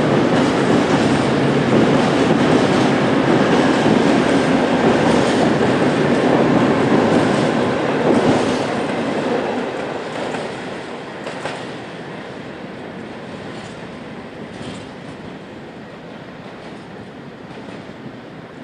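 Freight train of open coal wagons rolling past, wheels rumbling on the rails with repeated knocks over rail joints. The sound fades away after about nine seconds as the end of the train draws off.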